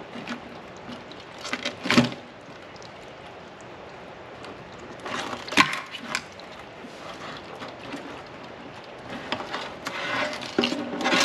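Live blue crabs being turned over by hand in a sink, their hard shells knocking and clattering against each other and the sink. Scattered sharp knocks, the loudest about two seconds and about five and a half seconds in, and a run of quicker rattling clicks near the end.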